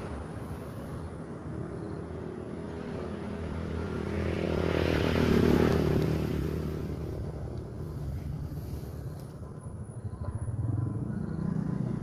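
Road traffic with a steady low engine hum; a motor vehicle passes, its sound swelling to a peak about five and a half seconds in and then fading away.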